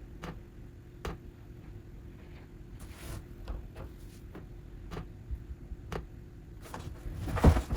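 Scattered clicks and taps on a laptop's keyboard and trackpad, about one a second, then a louder cluster of knocks near the end, over a faint steady hum.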